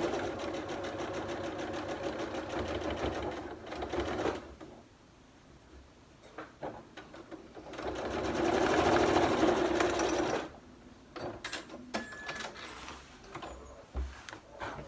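Domestic sewing machine stitching a seam in two runs of a few seconds each, with a pause between. A few light clicks and knocks follow.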